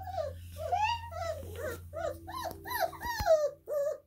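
Twenty-day-old Great Dane puppies whimpering and squeaking in short rising-and-falling cries, about two or three a second. A single low thump about three seconds in.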